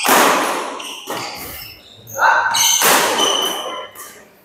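Badminton doubles rally: sharp racket strokes on the shuttlecock and short high squeaks of shoes on the court floor, echoing in a large hall.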